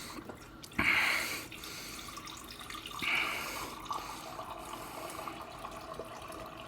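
Drinking sound effect with a watery, trickling character: two short splashy gushes, about a second in and again near three seconds, then a steady faint trickle with a held tone under it.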